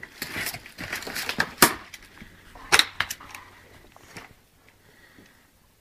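Broken concrete, tile and other rubble crunching and clattering as it is stepped on and shifted: a string of sharp knocks and crunches, the loudest about one and a half and three seconds in, dying away after about four seconds.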